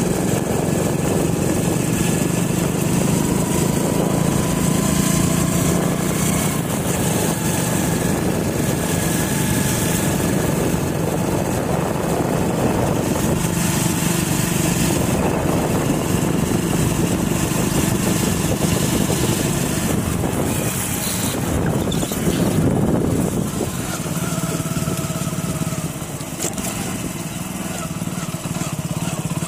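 Small engine of the vehicle carrying the camera, most likely a motorcycle, running steadily at cruising speed, with wind and road noise over it. It eases off slightly in the last few seconds.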